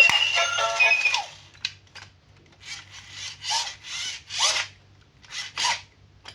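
Background music that cuts off about a second in, followed by about six short rubbing strokes, one after another, some with a brief falling squeak.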